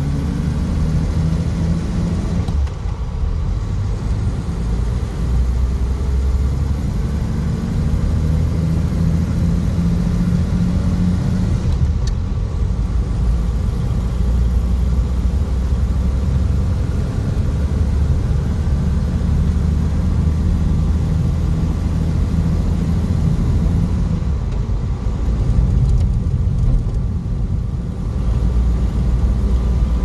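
Inline-six engine and road noise of a 1951 Nash Statesman driving down the road, heard from inside the cabin. The engine note changes a few times, dropping near 2.5 s, 12 s and 24 s in.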